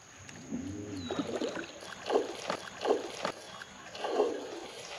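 Topwater popper lure being twitched across calm water, making short splashy chugs, three plain ones in the second half.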